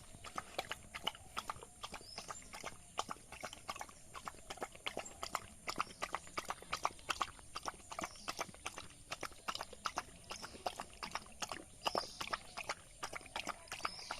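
A dog eating rice: quick, irregular smacking and chewing clicks, several a second.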